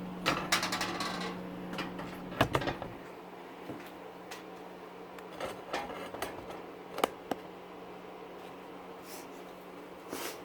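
Metal parts of a small electric motor being handled and taken apart by hand: scattered sharp clicks, knocks and short rattles. A steady low hum sounds underneath, drops out about three seconds in, and comes back near the end.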